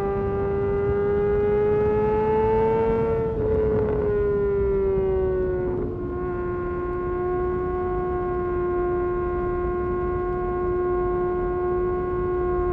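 2022 Kawasaki ZX-6R's 636 cc inline-four running at high revs with a steady high-pitched note, the pitch climbing slightly over the first three seconds, easing down over the next two or so, then holding level.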